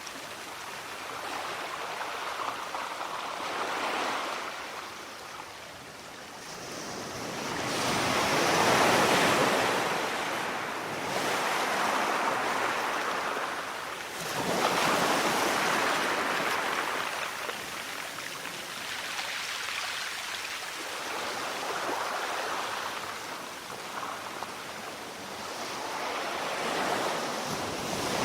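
Sea surf: waves washing in one after another, each a swelling rush of water that rises and falls away every few seconds.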